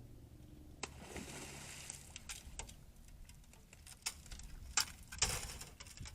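A fox moving over dry leaves and ground litter: irregular rustling and crunching footsteps with several sharp clicks, and a louder crunching scuffle about five seconds in, over a low steady hum.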